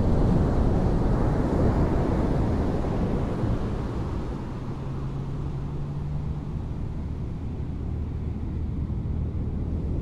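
Small ocean waves breaking and washing up a sandy beach: a steady surf wash, louder in the first few seconds and easing off from about four seconds in, over a low rumble.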